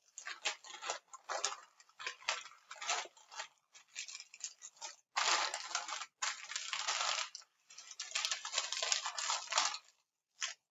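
Baking paper crinkling and rustling under the hands as a cream-filled meringue roulade is rolled up in it, in irregular crackles with two longer stretches of rustling about halfway through.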